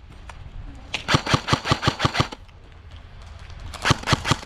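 Airsoft rifle firing two rapid bursts of evenly spaced shots, about seven a second: a longer burst about a second in and a short one of four shots near the end.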